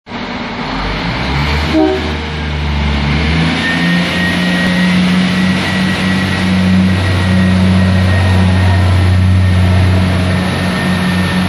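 Diesel multiple-unit train's underfloor engines running loudly close below. About three and a half seconds in, the engine note steps up as the engines power up, then holds steady.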